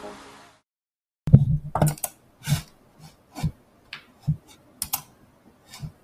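Background music fading out in the first half second. After a short silence come irregular clicks and taps of computer keyboard keys close to the microphone, about a dozen in five seconds.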